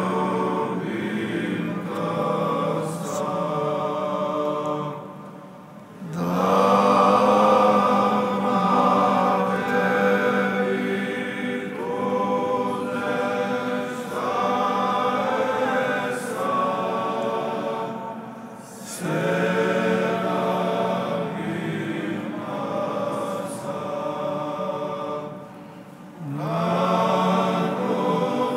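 A choir singing Orthodox church chant in slow, sustained phrases, several voices in harmony over a held low note, with short breaks between phrases.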